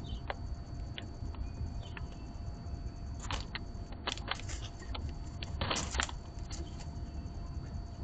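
Doves feeding in a seed tray: scattered clicks of beaks and feet on seed and tray, with louder clusters of scratching and rustling about three to four seconds in and again about six seconds in, over a steady low rumble.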